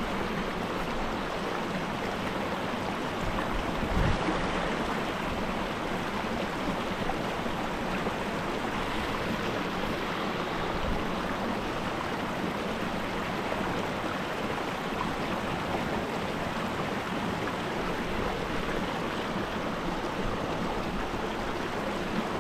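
Small mountain trout stream running steadily over rocks, with a brief low bump about four seconds in.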